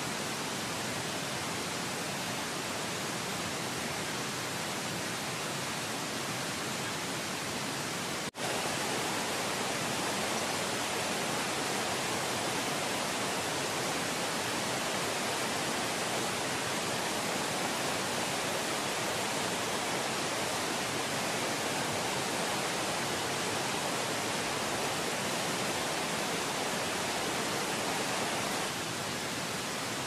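Steady, even hiss of noise with no bird calls heard, cutting out for an instant about eight seconds in.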